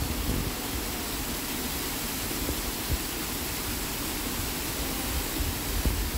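A small stream rushing over rocky rapids: a steady rush of water.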